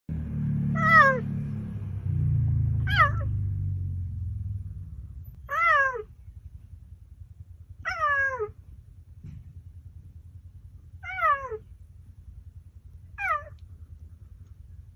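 Cheetah giving six short, high calls, roughly one every two seconds, each wavering and then dropping in pitch at the end. A low steady rumble runs under the first four seconds.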